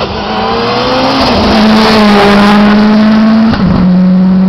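Hillclimb race car passing close at full throttle, its engine note high and steady. The note drops about a second in and breaks briefly about three and a half seconds in before carrying on slightly lower.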